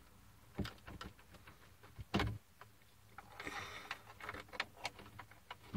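Faint handling sounds: a few light knocks, the loudest about two seconds in, then soft rustling with small ticks, as a hand brushes over cables and a panel-mounted device.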